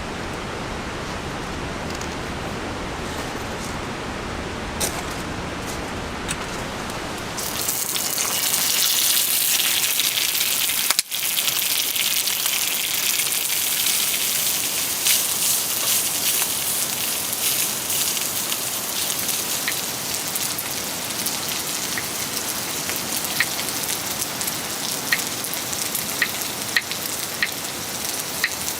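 Steady rushing noise that switches abruptly, about seven seconds in, to brighter, hissier rainfall, with a brief dropout soon after. In the later part, individual raindrops tick and patter on a surface.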